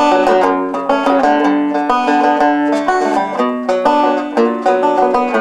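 Six-string banjo, played like a guitar, picking a quick run of plucked notes and chords.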